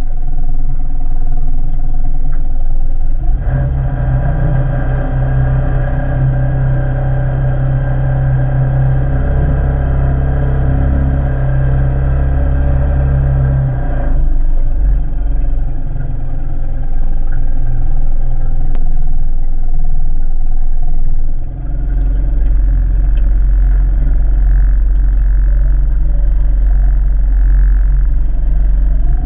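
Small outboard motor on an aluminium boat running steadily while towing a floatplane, heard close up. Its note shifts about three seconds in, again around fourteen seconds, and again around twenty-one seconds.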